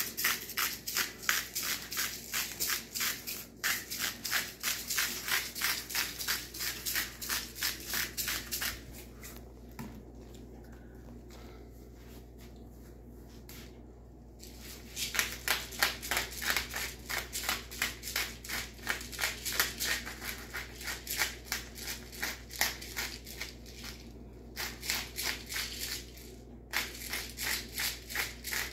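Handheld spice grinder twisted back and forth, grinding peppercorns or salt in a fast, even run of gritty clicks, about four a second. It stops for several seconds partway through, picks up again, and pauses once more briefly near the end.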